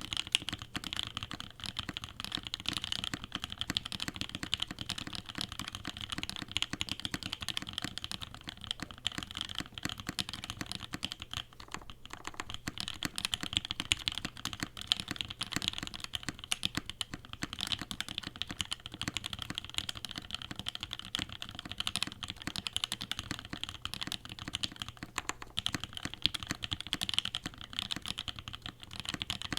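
Steady, fast typing on a CannonKeys Savage65 custom mechanical keyboard with Halu Halo switches, GMK keycaps and an FR4 plate: a dense run of keystroke clicks, with the switches lubed heavily enough that the builder calls them very overlubed.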